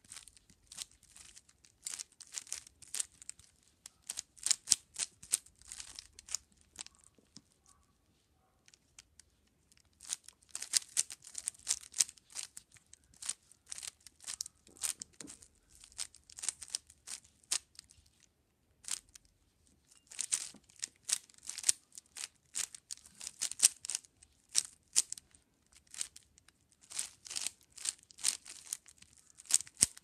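Plastic 5x5 Rubik's cube with its layers turned quickly by hand: rapid clattering clicks and scraping in flurries, with pauses about 8 seconds and 19 seconds in.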